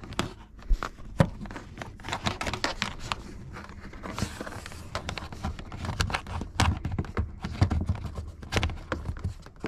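Irregular clicks, taps and scraping from fingers pushing a cable under a car's plastic interior trim, close to the microphone, with a stretch of rustling about four seconds in.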